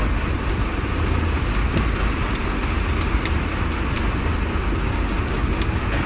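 Fishing boat's engine running steadily with a deep rumble, under a constant hiss of wind and water, with a few sharp ticks scattered through it.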